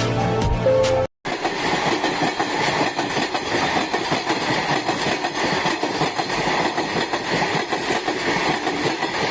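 A short burst of intro music cuts off about a second in, and then a train runs along the track: a steady, dense rumble and rattle of wheels on rails.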